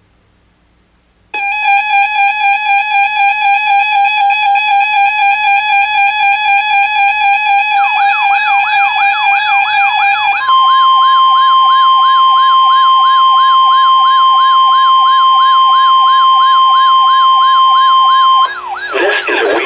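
Weather radio alert tones: a pulsing, buzzy electronic tone starts about a second in, and a fast up-and-down siren sweep joins it partway through. About halfway through, the pulsing tone changes to the steady 1050 Hz NOAA Weather Radio warning alarm tone, with the siren sweep still running under it, and the tone cuts off shortly before the end.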